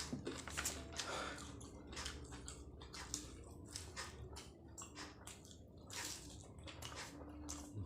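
Close-miked chewing and wet mouth sounds of a person eating martabak telur, an egg-filled fried pastry, as a run of irregular soft smacks and clicks.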